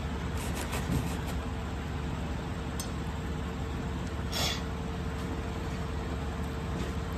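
Steady background hum with a faint constant tone, a few light clicks in the first second, and a brief soft rustle about four seconds in as a tissue wipes a kitten's mouth.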